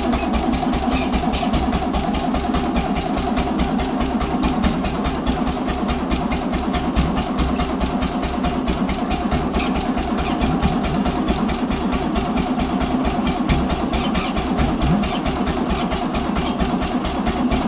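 Newly rebuilt four-cylinder petrol engine, likely a classic Mini's, running steadily with a fast, even beat just after finally firing up following slow cranking.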